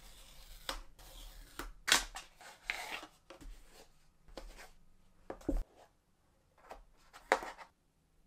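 Cardboard smartphone box being handled and opened: card rubbing and scraping against card, with short sharp snaps and taps, the loudest about two seconds in and again near the end.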